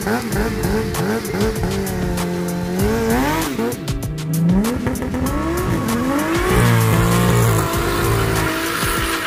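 Suzuki sport bike engine revving hard in quick rises and falls while the rear tyre spins in a smoky burnout, then a long rising rev as the bike pulls away.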